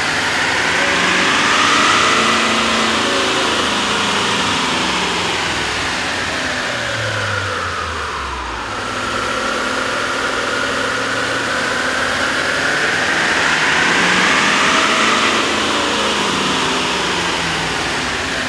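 A 6.6-liter turbodiesel V8 pickup running on a chassis dyno, heard in two runs for a sound comparison: first with the stock air intake, then with a K&N performance air intake. In each run the engine note and a turbo-like whine rise and fall in pitch, with a short dip in level about eight seconds in, where the runs change over.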